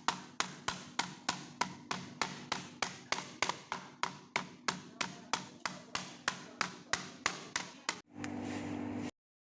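Rapid, even strikes on a chopping board as chicken is prepared, about four a second. About eight seconds in they stop, giving way to a steady low hum.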